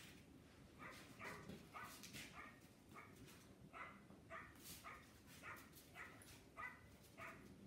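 A dog barking faintly in a quick, unbroken run of short, high barks, about two or three a second.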